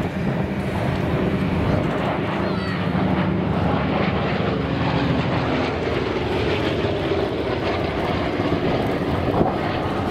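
Two Republic P-47 Thunderbolts' Pratt & Whitney R-2800 radial engines and propellers running steadily as the pair flies by in formation.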